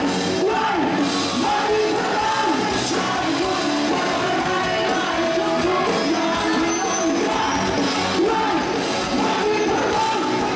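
Live rock band playing with a male lead singer belting into a handheld microphone over guitars and drums.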